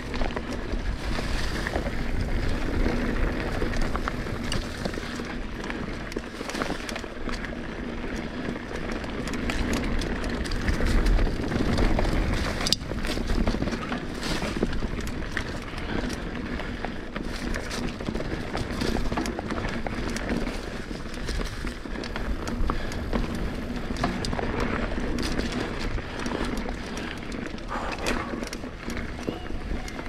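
Mountain bike rolling along a dirt trail: a steady rush of tyre and trail noise, with the bike rattling in frequent small clicks and knocks.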